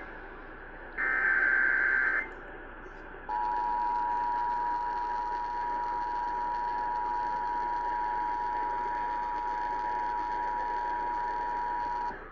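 Emergency Alert System header heard over AM radio, with hiss underneath. About a second in, a buzzy burst of SAME digital data tones lasts about a second. After a short pause, the two-tone EAS attention signal (853 and 960 Hz sounded together) holds steady for about nine seconds and cuts off, heralding a flash flood warning.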